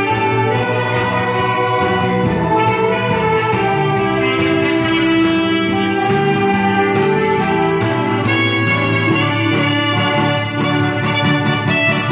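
A group of alto saxophones playing a tune together.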